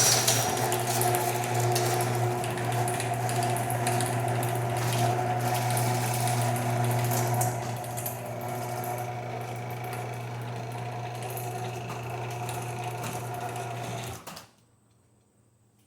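Chain-drive garage door opener running through a travel cycle: a steady motor hum with the loose chain rattling. The chain is slack and sagging. The sound drops in level about halfway through and stops abruptly near the end.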